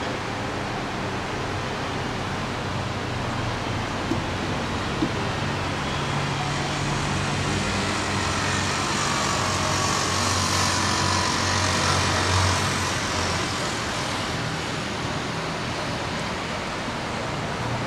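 Steady distant town traffic noise with a low hum underneath, swelling for a few seconds around the middle as a vehicle passes by below.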